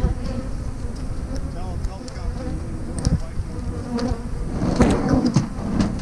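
Honeybees buzzing close around the camera, their buzz rising and falling in pitch as they fly past. The bees are stirred up and defensive about the black camera, which beekeepers say bees take for a bear.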